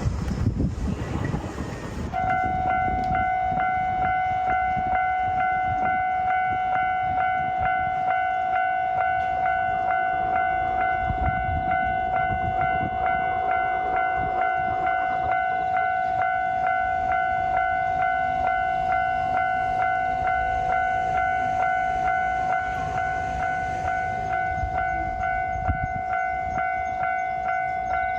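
Train running noise for the first two seconds, then a Japanese railway level-crossing alarm starts suddenly and rings on with a pulsing electronic tone, with a few low rumbles underneath.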